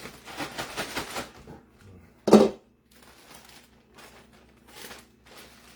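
Kitchen handling noises: about a second of rustling and clattering, then a single loud clunk about two seconds in, and a few faint clicks after it.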